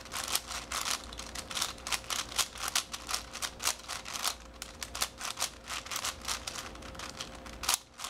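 A plastic 5x5 Rubik's-style cube having its layers turned rapidly by hand: a quick, uneven run of clicks and clacks as the slices snap round.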